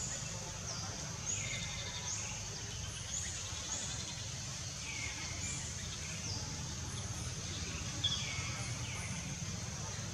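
Outdoor ambience: a steady high insect drone, with short high chirps that fall in pitch, about one a second, from birds, over a low steady rumble.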